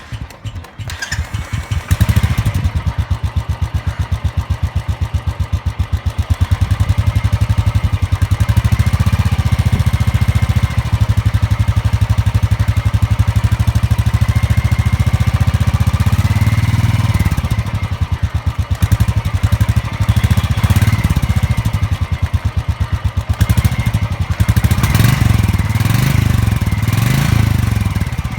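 Royal Enfield 350cc single-cylinder engine thumping through its stock silencer. It settles from uneven firing just after starting into a steady, even idle thump, and the throttle is blipped a few times in the second half.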